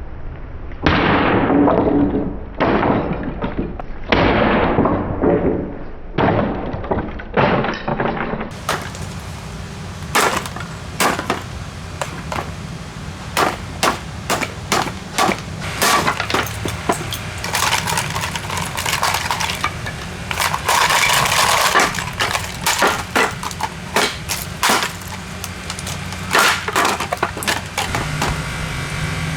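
A Magnavox plastic alarm clock radio being smashed: first about five heavy blows roughly a second and a half apart, then a long run of many quick, sharp knocks with plastic cracking and breaking apart.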